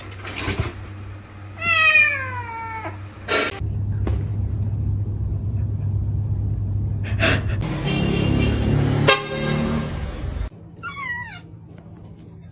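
A cat meowing: a long, falling meow about two seconds in and more meows near the end. A steady low hum runs underneath until it stops suddenly near the end.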